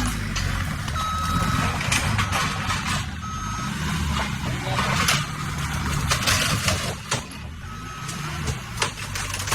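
Skid steer loader's engine running, with its back-up alarm beeping three separate times, mixed with knocks and clattering.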